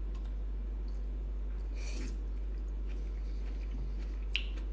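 Quiet sounds of eating sliced tomato: faint chewing, a soft rustle about two seconds in and one short click near the end, over a steady low electrical hum.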